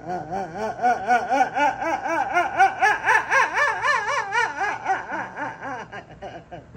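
A person laughing: one long, unbroken run of voiced pulses, about five a second, each rising and falling in pitch, fading out near the end. It is the involuntary noise of someone letting go during a slow, deep abdominal massage.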